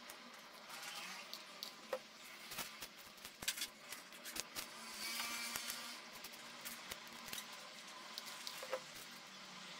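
Dry corn husk strips rustling and crinkling as hands pick them up and press them onto a glued head, with scattered small clicks and taps.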